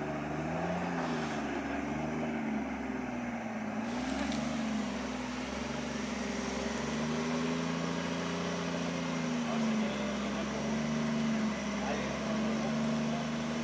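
An off-road 4x4's engine running under load, its revs rising and falling every second or two.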